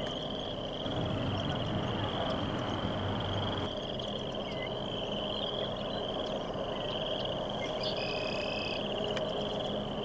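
Frogs trilling in a steady chorus: high, rapid, pulsing trills that overlap without a break. A low rumble runs underneath from about a second in to three and a half seconds, and a brief whistled note sounds about eight seconds in.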